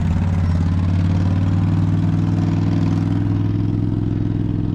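Heavy paving equipment's diesel engine running steadily at a constant speed, with no change in pitch.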